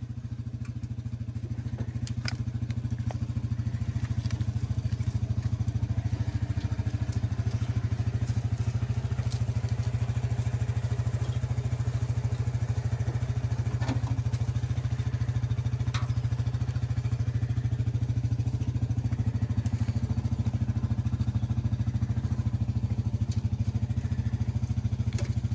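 Yamaha Grizzly 700 ATV's single-cylinder engine idling steadily, with a few light clicks on top.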